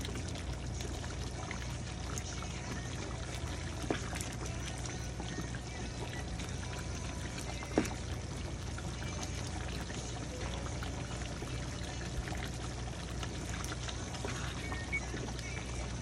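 Thick curry simmering and bubbling in a pan, stirred with a wooden spatula, with two sharp knocks of the spatula against the pan about four and eight seconds in.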